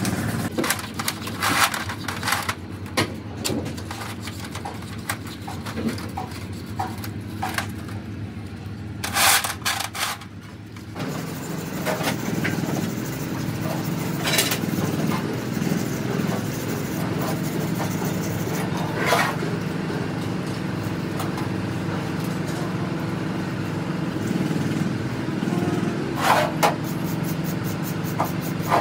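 Metal gearbox parts clinking and scraping as they are handled and scrubbed, over the steady hum of an engine running, which grows louder about a third of the way in.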